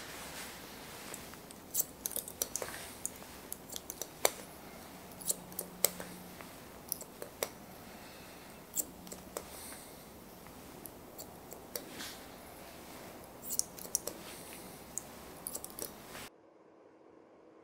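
Barber's scissors snipping short grey hair, working through it with a comb: irregular sharp snips, some single and some in quick runs. The snipping cuts off suddenly near the end.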